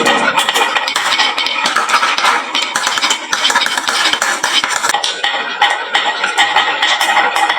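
Many marbles clattering and clicking down a HABA wooden marble run slope: a dense, continuous rattle of small hard knocks.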